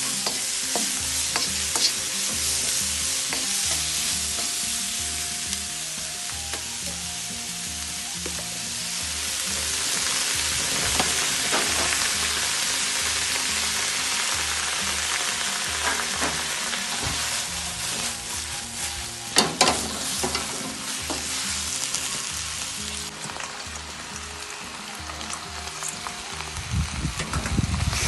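Food sizzling in a hot pan while it is stirred, with scattered clicks and scrapes from the spatula against the pan; a few louder knocks about two-thirds of the way through.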